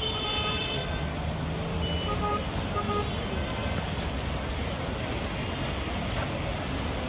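Steady roadside traffic noise from passing cars, with a vehicle horn sounding briefly at the start.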